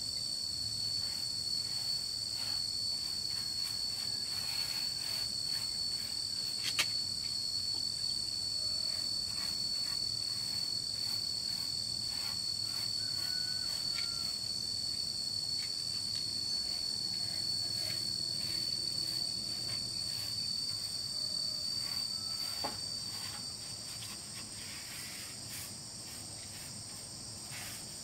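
Insects shrilling outdoors: one steady high-pitched tone that stops a few seconds before the end, over a fainter, higher insect hiss that carries on. A single sharp click about seven seconds in.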